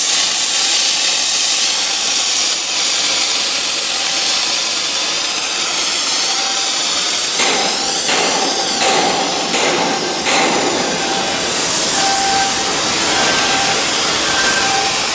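Steady, loud hissing noise of shipyard work, with short repeated tones in the latter part.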